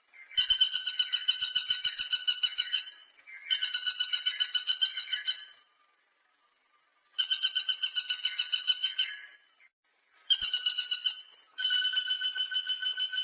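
Woodpecker calling: repeated bouts of a rapid rattling call, each about two seconds of quick clear notes at about eight or nine a second, with short pauses between the bouts.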